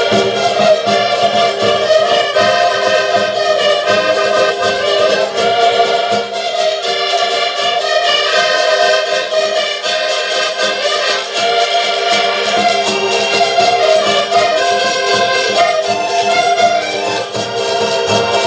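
Several accordions playing a lively Portuguese folk tune together, joined by a small stringed instrument, over a steady beat.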